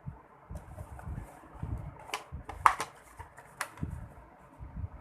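Light handling noises from a smartphone and its box being handled: a few sharp clicks and taps, the loudest about two and a half seconds in, over soft low bumps.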